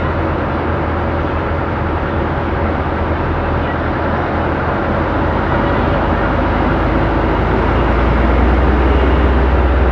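Hydraulic excavator's diesel engine running, a steady low drone that gets heavier about eight seconds in as it works under load.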